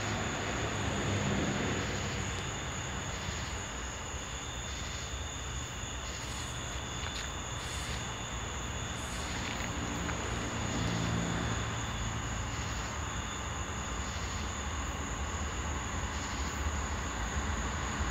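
Low, steady rumble of an approaching freight train led by a GE Dash 9 diesel locomotive, with a steady high-pitched whine above it.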